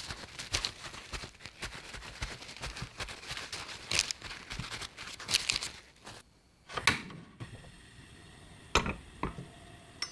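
Paper towel crinkling and rustling as it is pressed onto raw chicken pieces to pat them dry, for about six seconds. Then a few separate sharp clicks.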